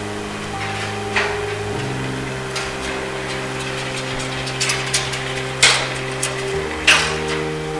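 Background music of sustained chords that change a couple of times. Over it come a handful of irregular sharp knocks and bangs, the loudest a little past halfway and near the end.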